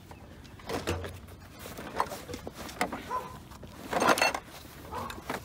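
Handling noises of a padded nylon fishing carryall being lifted by its shoulder strap and slung onto the shoulder: rustling fabric and a few short knocks and clicks of the strap and its fittings, loudest about four seconds in as the strap is pulled tight.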